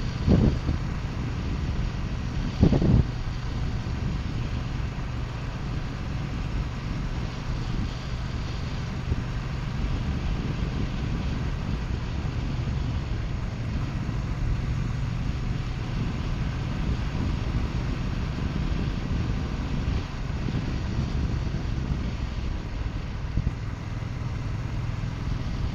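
2018 Triumph Bonneville T120's 1200 cc parallel-twin engine running at a steady cruise, with wind rushing past. There are two brief thumps, just after the start and again about three seconds in.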